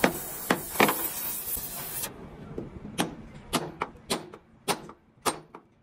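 Sledgehammer striking a steel truck chassis rail, about ten sharp metallic blows at an uneven pace, coming faster in the second half. An oxy-acetylene torch hisses for the first two seconds, then stops.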